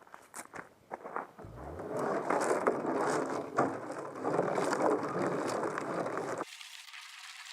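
A few scattered clicks and knocks, then about five seconds of dense metallic rattling and scraping from a rusty steel fuel tank being worked on, which stops abruptly near the end.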